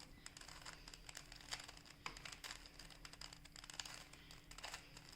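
Plastic Rubik's Cube being turned by hand, its layers making faint, irregular clicks and rasps as they rotate.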